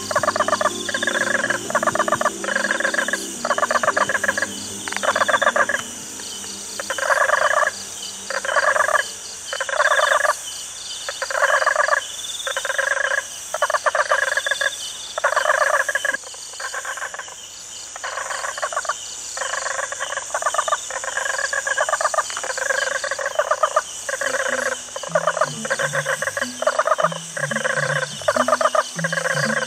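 Experimental electronic soundscape music in a tropical-night style: rapid rattling pulses about once a second, like frog calls, over a steady insect-like high hiss. Low bass notes sound at the start, fade out, and return near the end.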